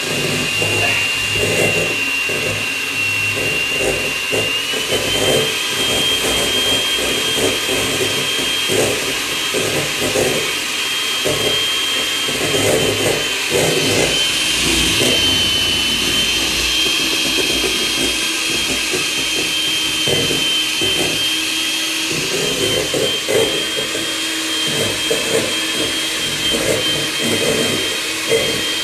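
Handheld electric mixer running, its beaters whipping egg whites for a French meringue in a stainless steel bowl. A steady high motor whine steps up slightly in pitch about four seconds in, over the irregular rattle of the beaters in the bowl.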